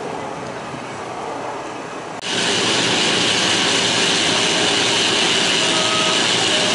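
About two seconds in, a loud power cutting tool starts abruptly and runs steadily with a high-pitched whine.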